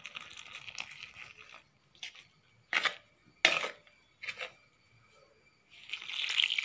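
Hot water poured from a steel tumbler into a steel bowl of wheat flour at the start and again near the end, with a metal spoon clinking against the bowl three or four times while it mixes the flour in between.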